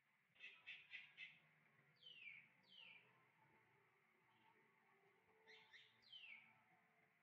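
Faint high-pitched animal calls. A quick run of four short chirps comes first, then several calls that slide down in pitch, in ones and twos.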